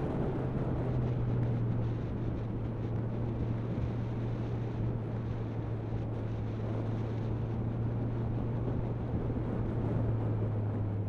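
Motorcycle engine running at steady road speed, a constant drone under wind rush over the microphone; the engine note drops a little near the end as the bike slows.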